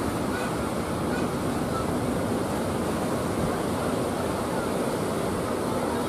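Heavy surf: large waves breaking one after another on the shore, a steady, unbroken rushing wash of water.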